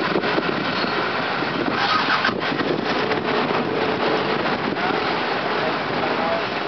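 Passenger train arriving: a steady rumble of coaches on the rails, with a run of clicks about two to three seconds in, and voices in the background.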